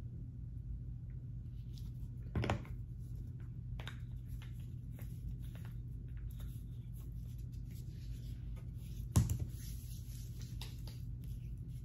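Small handling sounds of a plastic lotion tube and hands: faint rustles and taps, with two louder sharp clicks, one about two and a half seconds in and the louder one about nine seconds in, over a steady low background hum.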